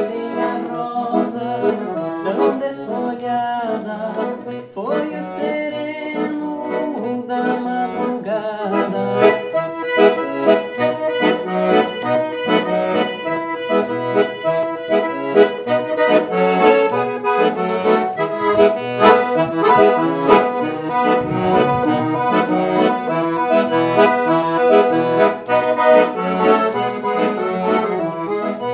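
Piano accordion playing an instrumental passage of a traditional song, a melody on the keyboard over the left-hand bass and chords.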